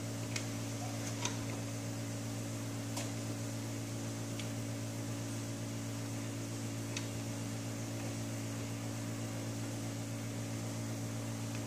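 Steady low electrical hum with a faint hiss, with a few faint light clicks scattered through it.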